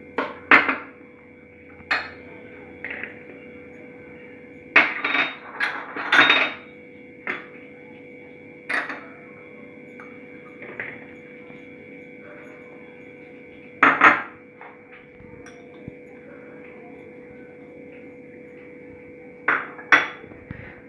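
Small glass bowls knocking and clinking against a plastic mixing bowl as chopped vegetables are tipped in, in scattered clusters of sharp knocks, the busiest run about five to six seconds in. A steady faint hum runs underneath.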